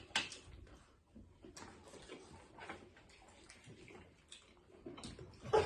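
Scattered soft clicks and smacks of people eating and handling food and packaging, chewing and mouth noises with the odd tap, at a low level.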